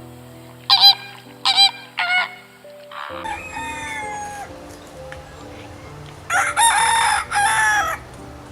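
Rooster crowing: a few short calls in the first couple of seconds, then a longer falling call, and the loudest, longest crow near the end. Soft background music with held notes plays underneath.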